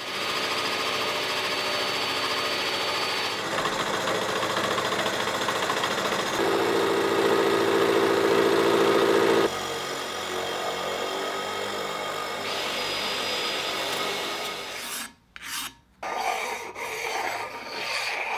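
Milling machine face-milling the top of a cast iron vise body casting: a steady motor whine under the dense scratching of the cutter in the iron, the sound shifting abruptly several times. Near the end, a few short strokes of a flat stone rubbed across the machined iron surface.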